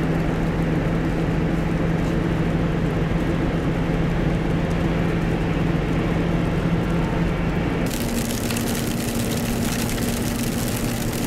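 Car interior while driving: a steady engine drone over road and tyre noise. About eight seconds in the sound changes abruptly to a higher, steady engine note with a loud hiss over it.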